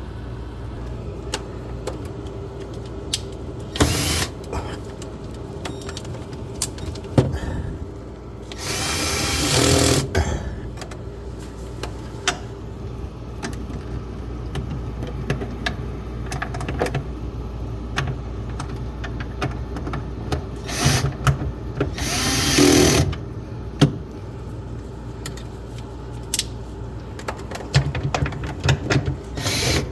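Cordless drill/driver running in short bursts to drive or remove screws, with two longer runs of a second or two. Clicks and knocks of parts being handled come in between, over a steady low hum.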